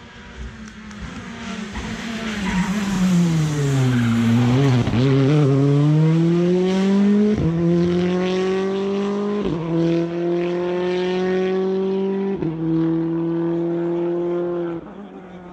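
Rally car engine at full throttle passing close by. Its note falls and then climbs as the car accelerates away, with three upshifts about two to three seconds apart. The sound cuts off suddenly near the end.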